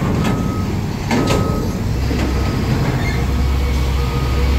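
International tractor truck's diesel engine running with a low, steady rumble that grows heavier about two seconds in. A reversing alarm beeps about once a second, and a few sharp metallic knocks sound about a second in.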